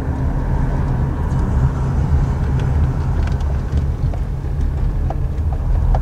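Steady low rumble of engine and tyre noise heard inside a moving car's cabin, with a few faint scattered ticks.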